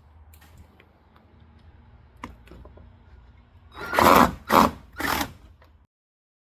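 Power drill/driver backing out the 5/16-inch bolts that hold a garage door's bottom seal: a few light clicks, then three short bursts of the drill about four seconds in. The sound then stops abruptly.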